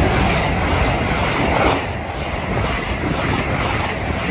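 LNER Azuma intercity train passing on the main line: a steady rush of wheels on rail and air with a low rumble. It eases slightly about two seconds in as the last coaches go by.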